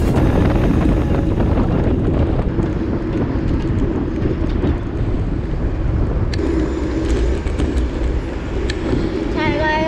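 Wind rushing over the microphone of a camera on a moving road bike, mixed with the steady rumble of road and passing car traffic. Near the end a brief, wavering high-pitched tone sounds over it.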